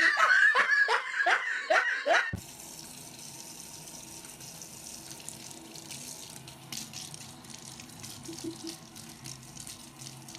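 A burst of laughter, a quick run of falling 'ha' sounds, for about two seconds, then a cut to water running steadily from a tap, much quieter, for the rest.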